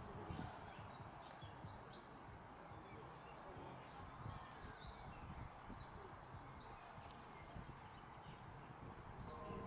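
Near silence: faint outdoor ambience with a low rumble and scattered faint high chirps.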